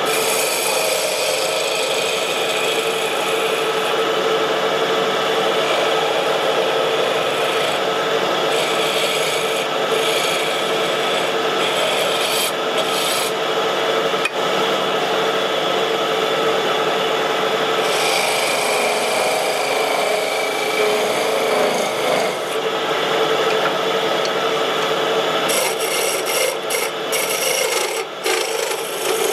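Wood lathe spinning a pine blank while a turning tool works against the wood, giving a continuous rasping scrape over a steady hum from the machine.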